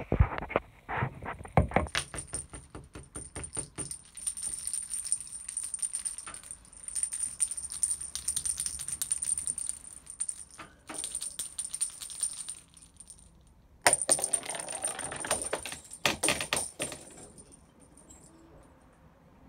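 Hollow plastic cat toy balls with bells inside, bouncing and rolling: a few sharp knocks at the start, then a long stretch of rapid rattling over a steady high jingle. After a pause of about a second, a second burst of rattling follows.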